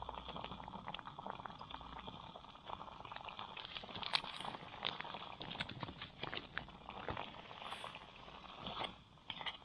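Thick butter chicken sauce simmering in a small metal pot on a gas canister stove, bubbling with many small irregular pops over a steady hiss.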